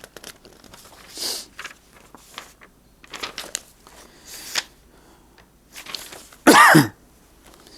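A man's vocal noises during a pause in talk: a sharp breath about a second in, a few small clicks and rustles, and near the end a short vocal sound that falls in pitch.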